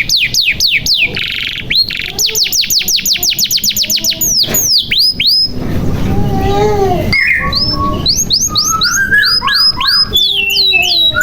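Domestic canary singing in full, continuous song: rapid runs of falling whistled sweeps repeated several times a second, a fast even trill, and a brief harsher, lower passage in the middle.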